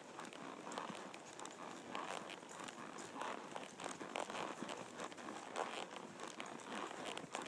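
Horse hooves falling on a sandy dirt trail: a steady run of faint footfalls.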